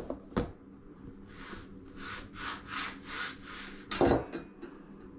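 A plastic folding cutting board being handled on a wooden tabletop. There is a knock, then about five soft scrapes as it slides and rubs on the wood, then a sharp, ringing clack near the end.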